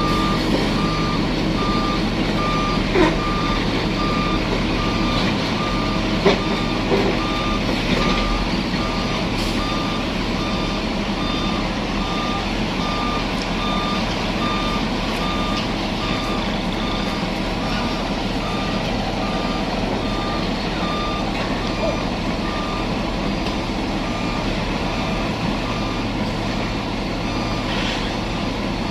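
Truck reversing alarm beeping steadily and evenly over the steady low running of a truck engine, with a couple of short knocks about three and six seconds in.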